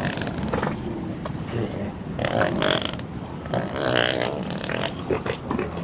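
Elephant calls: low grunting rumbles throughout, with two short higher, wavering calls about two and a half and four seconds in.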